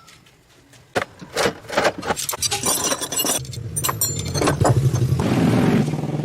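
Metal parts clinking and scraping, then a small gasoline engine starts and runs steadily from about three and a half seconds in, getting louder near the end.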